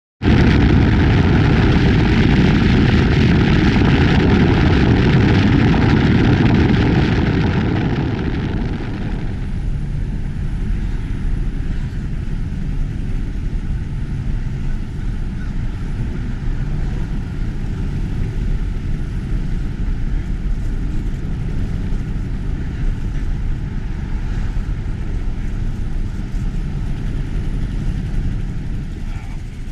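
Wind and road noise from a moving car, heard at an open side window: a loud rush of wind buffeting for about the first eight seconds, then dropping to a quieter steady low rumble of tyres and engine.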